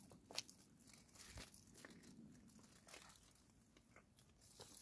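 Faint crinkling of a plastic bag and a clear plastic clamshell container being handled, a few soft crackles scattered through otherwise near-quiet.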